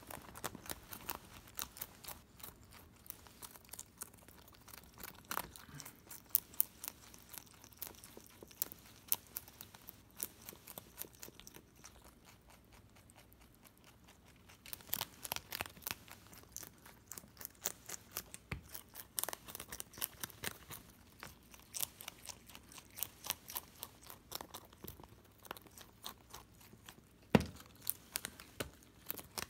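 Holland Lop rabbit chewing a cabbage leaf: quick, crisp crunching bites in irregular runs. There is a lull of a couple of seconds about halfway, and one sharper click near the end.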